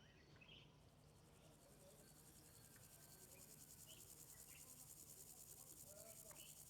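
Grasshopper stridulating, rubbing the toothed ridge of its hind leg against its wing: a faint, high-pitched buzz made of rapid, even pulses that starts about a second in and grows slightly louder. Faint bird chirps are heard behind it.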